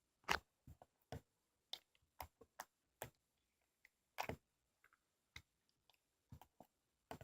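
Faint, irregular clicks and taps, about a dozen short ones spaced unevenly, the loudest about a quarter of a second in and again about four seconds in.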